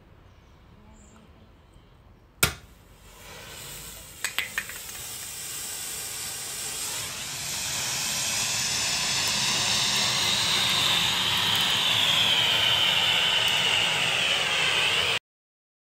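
A handheld Fire Safety Stick aerosol fire extinguisher discharging onto burning fuel trays: a steady spraying hiss that builds and grows louder, then stops abruptly near the end. A single sharp click comes about two and a half seconds in, and a few quick clicks come about four seconds in.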